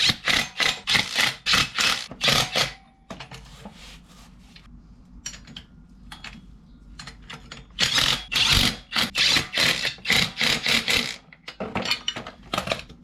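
Ratchet wrench being swung back and forth to run in the engine stand's mounting bolts, a quick rasping stroke about four times a second in two runs, the first at the start and the second about eight seconds in.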